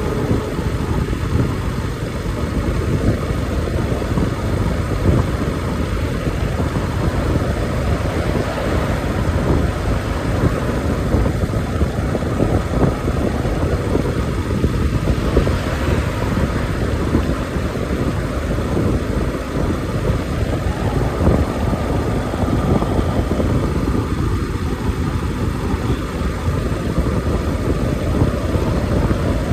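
Yamaha motorcycle cruising steadily at about 40 km/h: engine running at a steady pace, under heavy rush of wind and road noise on the microphone.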